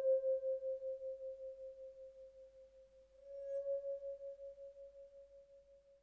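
Soundtrack music: a single bell-like tone rings and fades with a steady pulsing wobble. A second, slightly higher tone is struck about three seconds in and fades away near the end.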